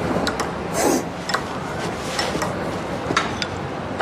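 A spoon clinking a few times in a ceramic bowl, with a couple of short breathy sniffs in between, over a steady background hiss.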